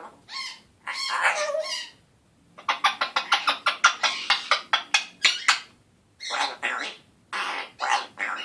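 Congo African grey parrot making scratchy, harsh vocalisations. There are a couple of short calls in the first two seconds, then a fast run of clicks lasting about three seconds, then more short calls near the end.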